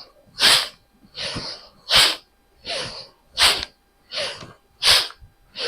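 Bhastrika pranayama: forceful, rapid breaths in and out through the nose, a rushing sound at a steady pace. Louder and softer strokes alternate, about eight in all, roughly one every three-quarters of a second.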